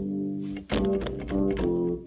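Electronic keyboard playing a run of low, sustained notes on one of its preset sounds, the pitch changing every few tenths of a second, with a sharp attack about two-thirds of a second in.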